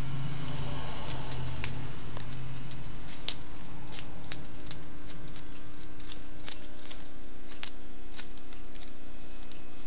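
Barber's hair-cutting shears snipping through short hair in quick, irregular cuts, over a steady low hum.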